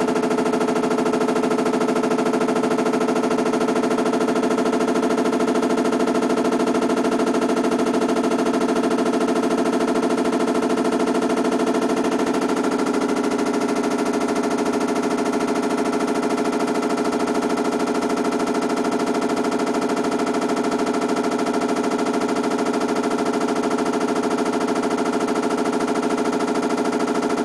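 Hitachi BW-D8HV top-loading washing machine making an abnormal running noise: a fast, continuous rattle over a steady hum. Its pitch shifts slightly about halfway through.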